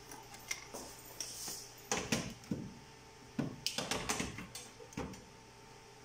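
Hands fitting the touchscreen cable and its connector inside an opened SLE 5000 infant ventilator: a scatter of light clicks, taps and handling knocks, busiest about two seconds in and again around four seconds in.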